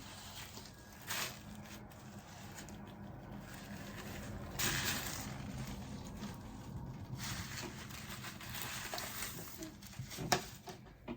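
Rustling of a long synthetic wavy wig's hair as it is handled and shown, with a few light knocks, over a faint steady hum.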